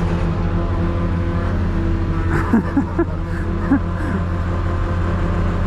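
Semi truck's diesel engine running at a low, steady RPM to drive the air compressor for a pneumatic cement unload: a steady low drone.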